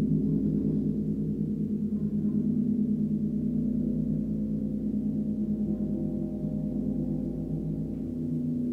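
Large gong, tuned to G#1 (51.91 Hz), played gently with a felt mallet: a steady, deep drone with a fast throb running through it and no distinct strikes.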